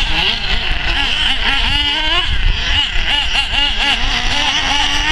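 Radio-controlled off-road cars racing on a dirt track, their motors revving up and down in quick, repeated rises and falls.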